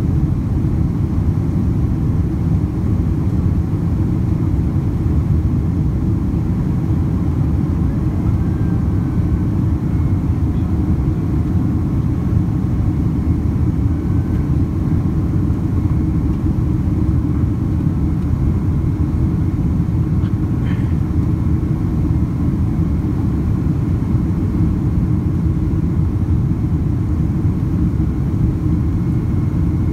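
Steady low roar inside the cabin of a Boeing 767-300 airliner climbing out after takeoff: the twin turbofan engines and the airflow over the fuselage, heard from a window seat beside the wing.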